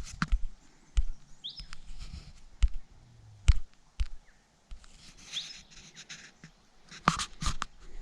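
A bird giving a short chirp every few seconds, over scattered sharp knocks and thumps.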